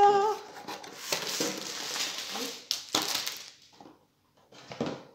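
Cardboard box and plastic wrapping rustling and crinkling as a rolled canvas in a plastic sleeve is taken out of its kit box and set down, with a short pitched whine right at the start.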